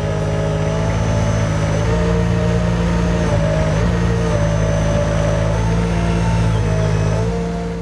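Weedoo aquatic workboat's engine running steadily under way, with a thin high whine above it and small shifts in pitch; the sound eases off near the end.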